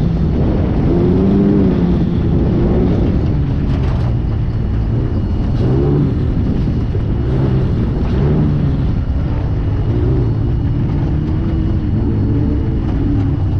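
Off-road race car's engine running hard, its pitch rising and falling again and again with the throttle, over a continuous rumble, heard from inside the car.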